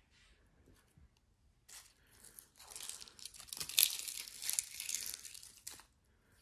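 Clear plastic film and thin, brittle scraps of cured resin being crumpled and pulled apart by hand, crinkling and crackling. After a brief crackle, a dense stretch of crinkling starts about two and a half seconds in and stops about three seconds later.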